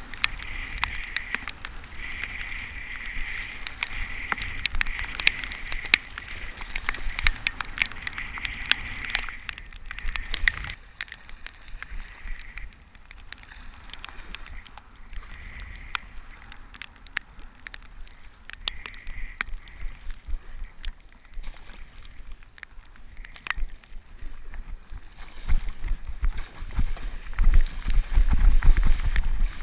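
Water sloshing and splashing around a sea kayak paddled through choppy, breaking surf, with many sharp ticks of spray and drips against the camera. There is a steady hiss of whitewater in the first ten seconds and a louder low rumble in the last few seconds.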